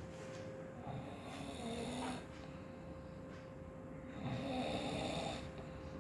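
Someone snoring in their sleep: two snores, a softer one about a second in and a louder one about four seconds in, over a faint steady hum.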